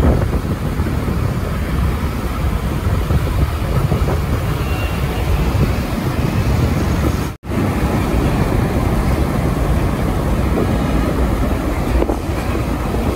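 Street traffic with heavy trucks: a steady low engine and road rumble, with wind on the microphone. The sound drops out for an instant about seven seconds in.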